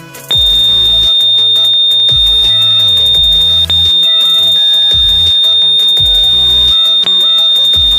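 Rain alarm's buzzer sounding one continuous high-pitched tone, which starts just after the beginning and holds steady with two momentary dropouts, the alarm going off as its sensor is wetted. Electronic background music plays underneath.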